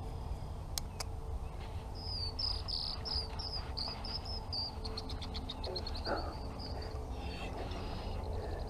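A small bird singing: a few loud, high, slurred whistled notes that then speed up into a quick trill and fade, over a steady low rumble of wind. Two sharp clicks come about a second in.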